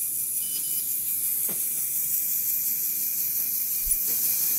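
Steady high hiss, with two faint short beeps about half a second in as a button is pressed on a LEGO Mindstorms RCX brick, and a soft click about a second and a half in.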